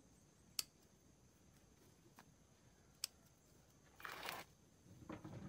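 Hand pruning shears snipping plant stems: two sharp clicks about two and a half seconds apart, then a brief rustle about four seconds in, with softer rustling near the end.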